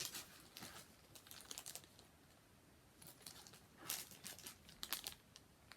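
Faint crinkling and rustling of packaging as small toy parts are unpacked by hand, in short scattered bursts, the strongest about four seconds in.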